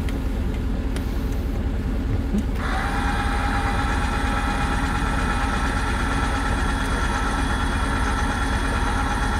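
Electric trailer tongue jack motor starting up about two and a half seconds in and running with a steady whine, over a low steady rumble. The jack is being run down to take the trailer's tongue weight off the hitch ball before the coupler is released.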